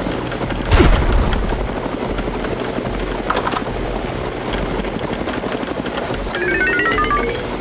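A rattling engine running steadily, with two sharp knocks about a second and three seconds in, and a short stepping run of falling tones near the end.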